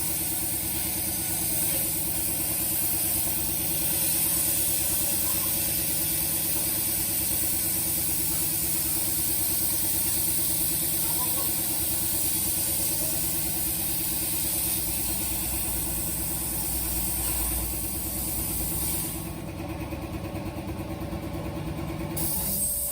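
CNC plasma cutting machine running while cutting thin steel plate: a steady hiss and hum. The high hiss cuts out about three-quarters of the way through, and the hum stops near the end.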